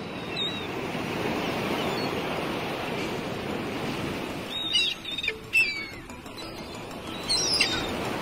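Steady rush of wind and water from a sailing yacht moving under sail at sea. A few short, high, downward-gliding chirps or squeaks come through about halfway in and again near the end.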